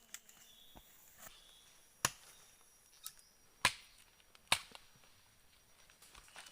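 Wood being chopped with a blade: a few sharp, irregular chops, the loudest about two, three and a half and four and a half seconds in.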